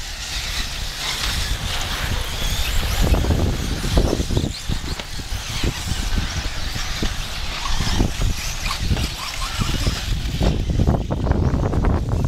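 Electric 1/8-scale off-road RC buggies racing on a dirt track, under a heavy, uneven low rumble with scattered thumps.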